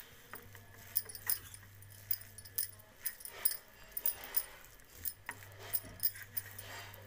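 Steel spoon scraping and clinking irregularly against a steel bowl while stirring grated bottle gourd and flour into a thick, damp mix.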